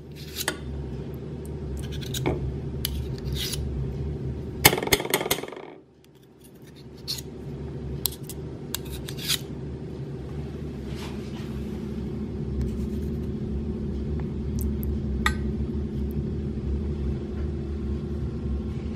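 Metal spoons scraping and tapping against a stainless saucepan while scooping and shaping thick squash purée into quenelles, a scattering of short scrapes and clinks with a louder cluster about five seconds in. A steady low hum runs underneath.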